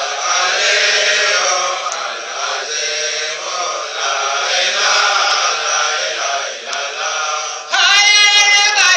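A group of voices singing together, then near the end a man's solo singing voice comes in loudly through a handheld microphone.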